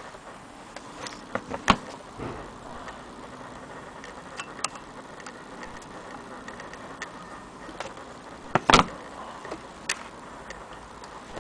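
Scattered light clicks and two louder knocks about seven seconds apart, in no steady rhythm, as the cast-iron parts of an antique hand-cranked Willcox & Gibbs chain-stitch sewing machine are handled.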